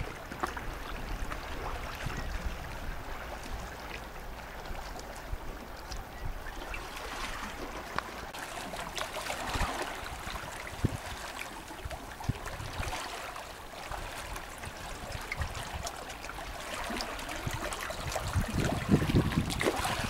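Seawater lapping, trickling and gurgling among shoreline rocks, with small splashes and clicks. Louder low rumbling builds near the end.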